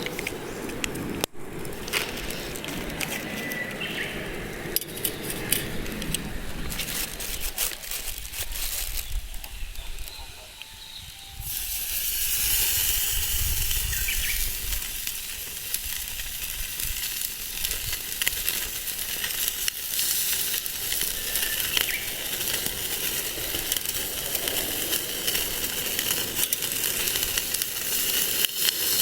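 Wood fire crackling, with many small pops over a steady hiss. Partway through, the sound changes to a brighter, fuller hiss.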